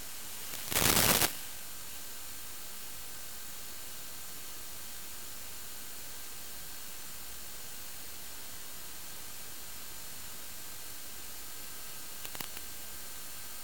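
Steady static hiss from the receiver of an analog FPV video link, carrying no motor or wind sound, with a loud burst of noise about a second in and a brief crackle near the end.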